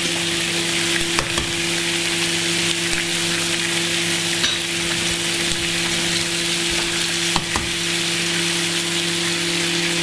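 Eggs frying in hot oil in a frying pan, with a steady sizzle and a few faint ticks.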